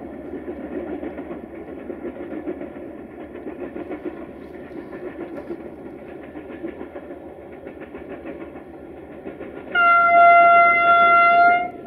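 Distant GM diesel locomotive running as it approaches with its train, then near the end one long, loud horn blast of about two seconds on a single pitch.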